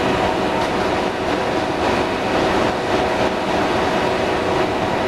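T2120 deep hole drilling machine running: a steady, unbroken mechanical noise with a few steady humming tones in it.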